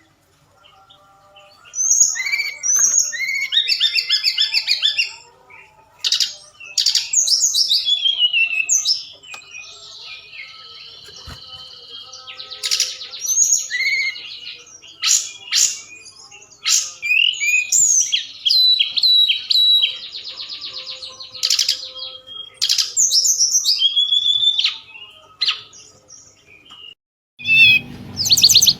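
Tledekan gunung singing vigorously: bursts of sharp chirps, fast rattling trills and falling whistles, one after another with short gaps. It is a recording used as a lure call to stir other birds into answering and singing.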